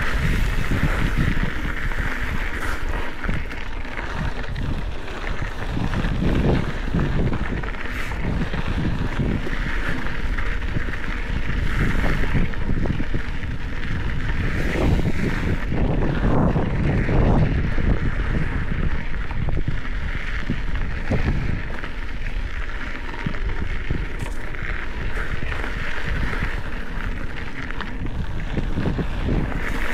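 Wind buffeting the camera microphone as a Specialized Epic 8 Evo mountain bike rolls fast over a dry dirt trail. Under it is a steady rumble and rattle of the tyres and bike over the rough ground.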